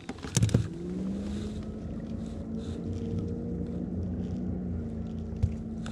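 A boat engine running with a steady hum over a low rumble; its pitch rises slightly about a second in and then holds. A few short knocks come near the start.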